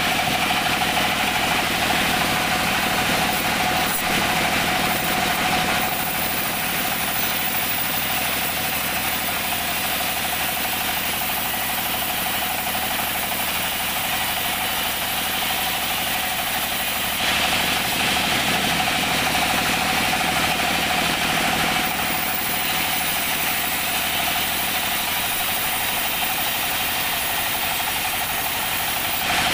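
Sawmill band saw running and cutting teak timber lengthwise, driven by a stationary engine: a steady machine noise with a constant whine, growing brighter and a little louder for a few seconds just past halfway.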